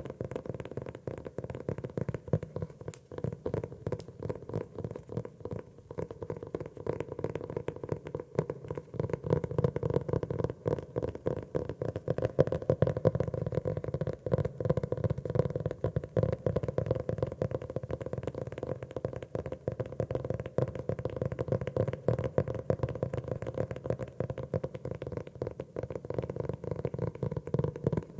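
Fingers tapping rapidly and continuously on a notebook, a dense run of soft, hollow-sounding taps.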